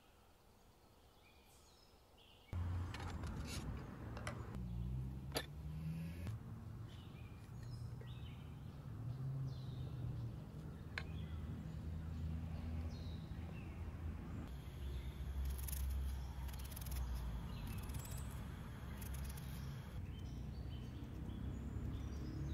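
Outdoor ambience with small birds chirping. About two and a half seconds in, a steady low rumble starts and the sound gets louder, with a few sharp clicks.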